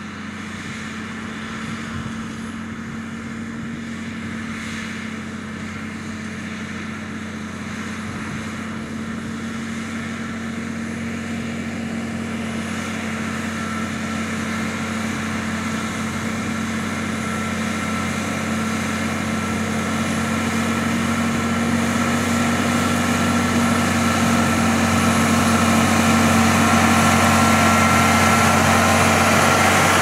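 Massey Ferguson 6480 tractor's six-cylinder diesel engine running steadily under load while pulling a plough, growing steadily louder as the tractor draws near. A high whine strengthens in the second half.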